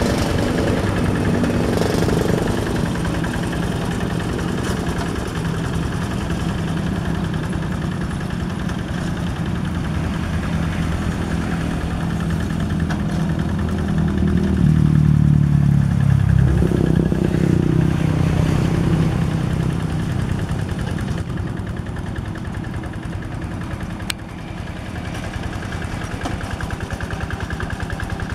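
Yanmar single-cylinder diesel engine of a two-wheel hand tractor running steadily as it works a flooded paddy field, getting louder for a few seconds around the middle.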